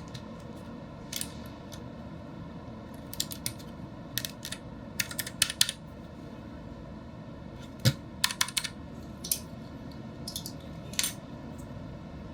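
Scattered sharp plastic clicks and clacks from a Keychron K6 mechanical keyboard being handled, its keys and keycaps worked in irregular little clusters, with one duller knock about eight seconds in. A steady hum runs underneath.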